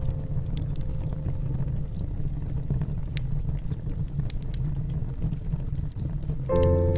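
Wood fire crackling in a fireplace: sparse sharp pops and snaps over a low steady rumble. Music fades out in the first second or two and comes back in near the end.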